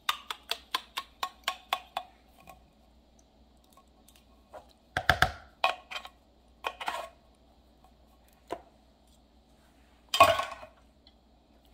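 A metal spoon tapping rapidly against the inside of a can, about five taps a second, knocking condensed cream of celery soup out into a mixing bowl. It is followed by scattered knocks and clinks of the spoon and can, the loudest one near the end.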